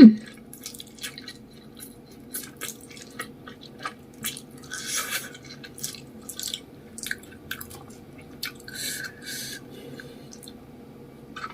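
A person chewing spicy noodles with fish balls close to the microphone: wet, squishy mouth sounds with many short clicks and smacks, and a couple of longer wet bursts about five and nine seconds in.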